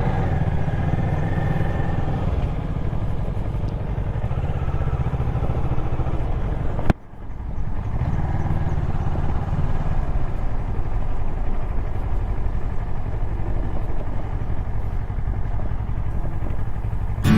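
Motorcycle engine running steadily under way. A sharp click and a short drop in sound come about seven seconds in, then the engine resumes.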